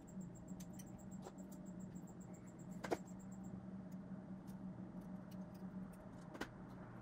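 A few faint clicks and taps of small metal parts and a steel pick being handled while an O-ring is worked onto an overdrive relief-valve part. The clearest click comes about three seconds in, over a steady low hum.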